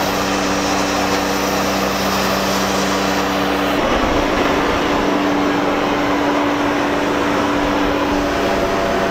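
A steady mechanical hum over a dense hiss; its tone changes abruptly about four seconds in and then holds steady again.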